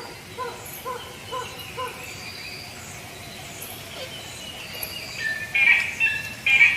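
Forest ambience with birds calling: a soft short note repeats about twice a second at first, and louder high chirping calls come in from about five seconds in.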